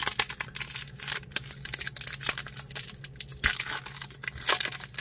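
Baseball card pack wrapper being torn open and crinkled by hand: a quick run of crackles, with louder rips about three and a half and four and a half seconds in.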